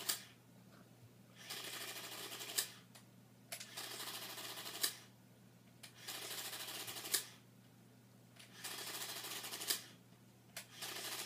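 Printing calculator's print mechanism running in repeated bursts of rapid mechanical chatter, each about a second long and ending in a sharp click, coming about every two and a half seconds.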